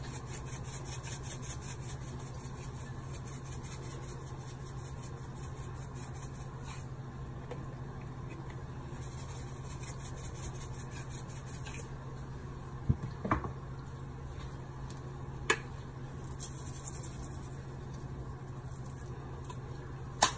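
Dry seasoning shaken from shaker containers over chicken in a pan: several bursts of quick rasping shakes, with a few sharp clicks of the containers between them, over a steady low hum.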